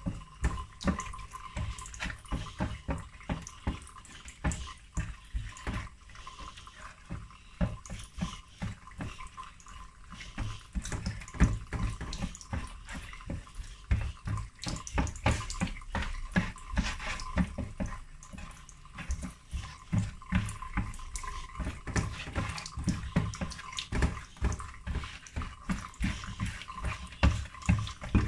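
Wet slaps and clicks of seasoned mackerel pieces being picked up and set down on a baking tray by a gloved hand, coming irregularly, several a second.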